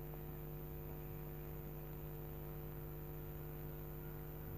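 Faint, steady electrical hum with a few evenly spaced overtones.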